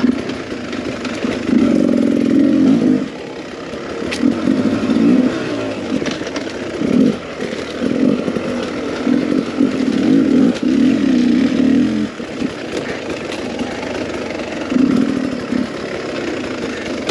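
Beta 300 RR two-stroke enduro motorcycle engine revving in repeated surges as the throttle is opened and shut again and again, with the longest pull through the middle.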